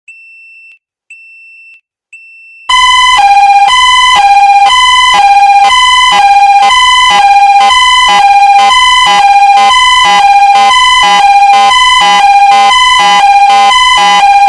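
System Sensor fire alarm: three short, faint, high-pitched beeps, then about two and a half seconds in a loud hi-lo evacuation tone starts, alternating between two pitches about every half second.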